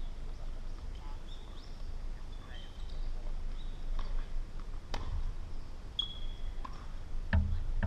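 Tennis ball strikes: two sharp hits about a second apart midway, more near the end, with faint bird chirps.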